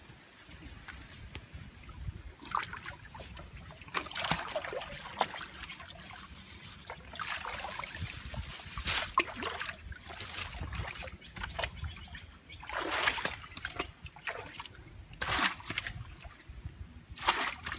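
Shallow muddy water splashing and sloshing in irregular bursts, a second or two apart, as someone wades and handles things in it.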